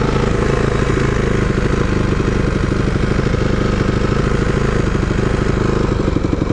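Yamaha WR250F dirt bike's single-cylinder four-stroke engine running steadily while riding along a dirt track, heard from a camera mounted on the handlebars, with a hiss of wind and tyre noise underneath.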